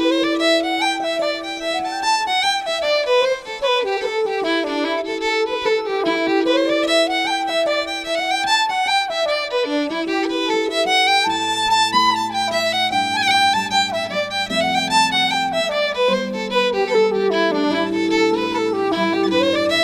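Irish folk tune played on fiddle: a quick melody of rising and falling runs. A lower, steadier accompaniment comes in about eleven seconds in.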